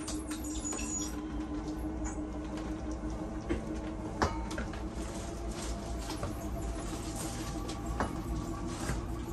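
Camper slide-out room retracting on its motor drive: a steady motor hum with a held tone, with a few sharp clicks, the strongest about four seconds in and another near the end. It is the slide-out's first run in on its newly replaced floor.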